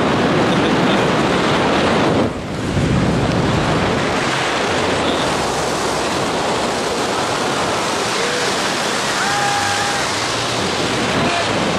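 Steady rush of wind buffeting the microphone during a tandem parachute descent under an open canopy, with a brief dip about two seconds in.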